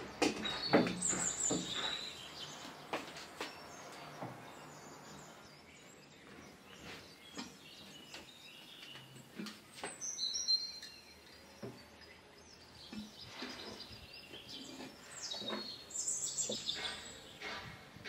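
Birds chirping with short high calls in three spells, over scattered light clicks and knocks, the loudest knocks near the start.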